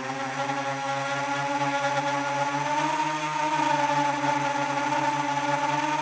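Brushless motors and propellers of a 7-inch FPV quadcopter whining steadily in flight, heard from the onboard camera, the pitch wavering slightly with throttle changes.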